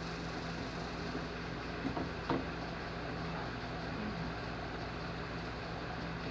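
Steady low hum with room noise, broken by two light knocks a little after two seconds in.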